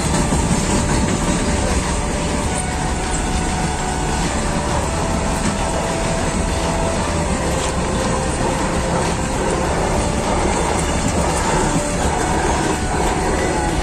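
Long freight train of open-top box wagons rolling past close by: a steady rumble of wheels on rail, with faint thin whining tones from the wheels coming and going.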